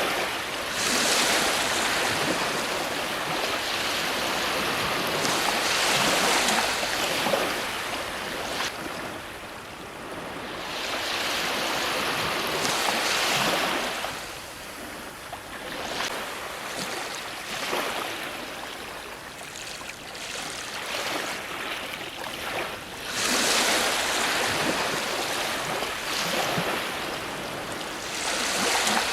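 Ocean waves breaking on a shore, the surf rushing in and washing back in slow swells several seconds apart, with a big surge about a second in and another past the twenty-second mark.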